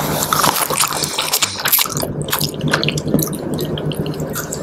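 Close-miked wet eating sounds as a chicken foot in spicy broth is sucked, nibbled off the bone and chewed: a dense run of small wet smacks and clicks.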